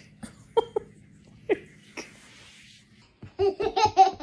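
A few short sharp sounds, then a person laughing in quick bursts near the end.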